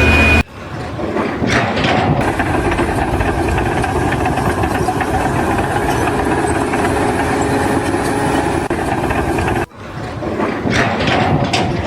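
Engine of heavy machinery running steadily, broken by two abrupt cuts, one about half a second in and one near ten seconds in.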